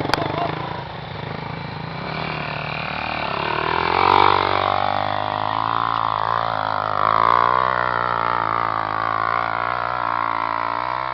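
Motocross motorcycle engine revving, its pitch rising and falling as the throttle is worked, loudest about four seconds and seven seconds in.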